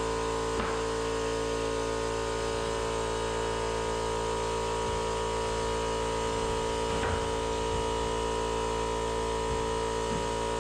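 A steady, unchanging hum made of several fixed tones over a low drone, with a faint tick about seven seconds in.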